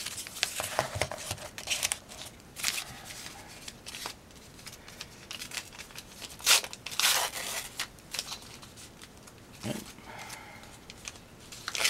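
Foil baseball card pack crinkling and being torn open, with handling rustle; the loudest sharp crackles come a little past the middle.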